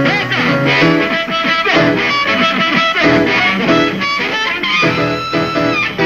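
Live electric blues band playing an instrumental passage, with electric guitar, piano and amplified harmonica over drums.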